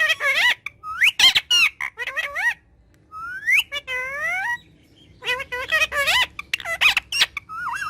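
Parrot vocalizing in quick bursts: warbling, gliding whistles and speech-like chatter mixed with sharp clicks, pausing briefly twice.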